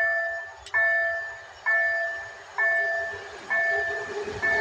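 Level-crossing warning bell ringing in an even series of single dings, about one a second, each fading before the next. An EU07 electric locomotive and its train approach faintly underneath and grow louder near the end.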